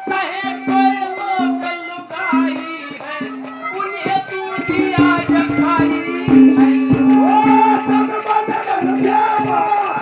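Live Haryanvi ragini folk music: a bending melody over a low note held and repeated on and off, with steady hand-drum strokes and rattling percussion.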